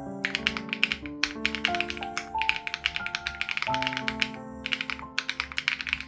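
Fast, continuous typing on an SPM AL87B mechanical keyboard with BSUN Raw switches and its sound-dampening foam removed, a rapid stream of key clicks with a few brief pauses. Soft background music with held notes plays underneath.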